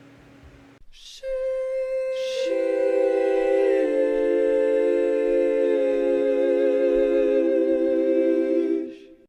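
Outro music: a soft held chord of steady sustained tones that fades in about a second in, gains notes and shifts once or twice, then stops abruptly near the end.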